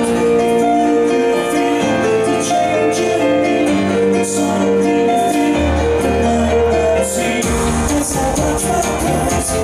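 Synthpop played live on a synthesizer keyboard: an instrumental passage of held synth notes and a melody over a bass line and a light beat.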